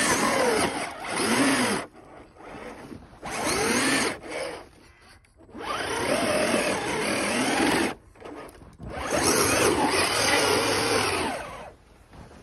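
RC off-road truck's electric motor and drivetrain whining in four bursts of throttle, the pitch rising and falling with each, as the tyres spin through snow.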